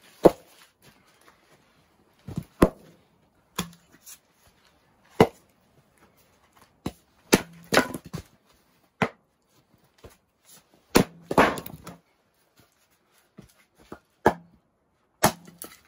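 Axe splitting firewood on a wooden chopping block: about a dozen sharp chops at uneven intervals, some in quick pairs, a few trailing into a rougher crackle as the wood gives way.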